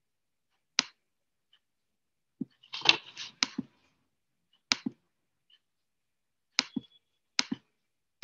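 Scattered short clicks and knocks, some in pairs and a brief noisier rustle near the middle, with dead silence between them, heard over a Zoom call's audio.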